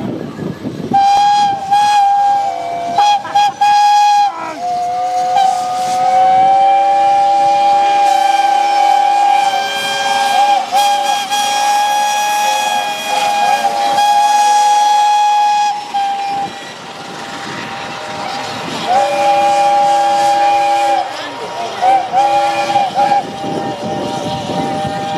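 A chorus of steam whistles from the saddle-tank locomotive Kilmersdon and the rally's steam engines, several pitches sounding at once in long overlapping blasts, greeting a passing steam-hauled train. The blasts die away, a second long blast follows, then short toots near the end, over the noise of the passing train.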